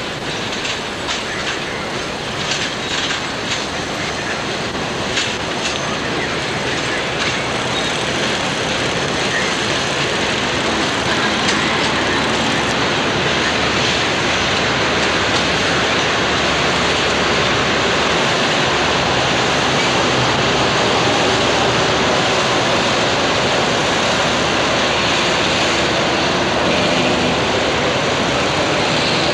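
Southern Pacific passenger cars rolling past, wheels clicking rapidly over the rail joints in the first several seconds, then a steady rolling noise that grows louder as the cars go by.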